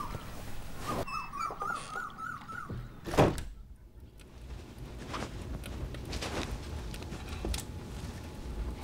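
A high warbling animal call, rising and falling several times a second for about two seconds. It is followed about three seconds in by a single loud thump, the loudest sound here. After that there is only a low hum with faint scattered knocks.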